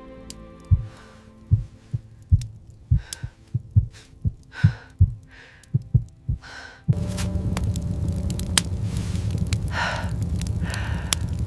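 Low heartbeat thumps that come faster and faster, with heavy breaths between them. About seven seconds in they cut out, replaced by a steady hiss over a low hum, with further breaths.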